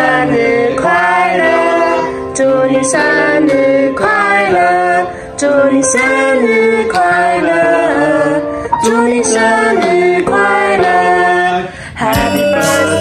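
Background music: a song with a voice singing a melody over guitar accompaniment.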